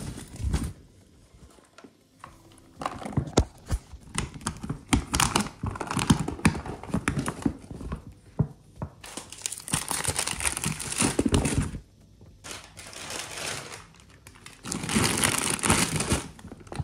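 Plastic food bags crinkling and the cooler bag's fabric rustling as it is packed and closed, with scattered knocks. Two longer scratchy noises come about nine seconds in and near the end.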